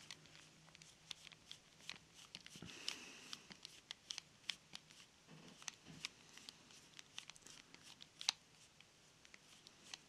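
Faint, irregular small clicks and scrapes of a Phillips screwdriver turning out the long screw that holds a baitcasting reel's handle knob.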